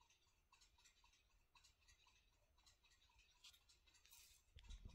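Near silence, with faint irregular ticks and a brief soft rustle about four seconds in, from a plastic seasoning shaker bottle being turned over in the hand.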